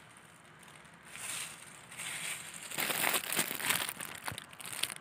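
Thin clear plastic crinkling and crackling as it is handled with gloved hands, faint at first and busier and louder from about three seconds in.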